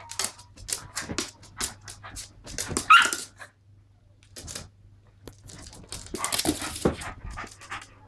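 Two small dogs play-fighting: quick barks and yaps with a louder bark about three seconds in, and a dense flurry of yapping and scuffling about six seconds in. Short clicky scrabbles of claws and paws on the wooden floor and sofa run between the barks.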